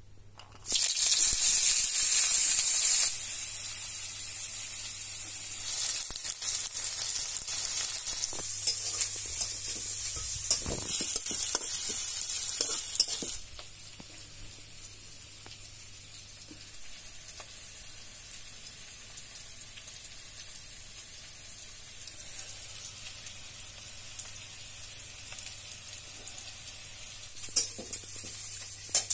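Food frying in hot oil in a pan. A loud sizzle breaks out suddenly, stays loud and uneven for about thirteen seconds, then settles to a quieter steady sizzle, with a brief flare-up near the end.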